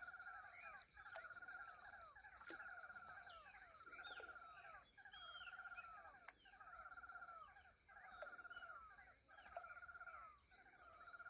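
A bird calling over and over: a short, rasping call at two pitches, repeated a little more than once a second, faint. A steady high-pitched whine runs underneath.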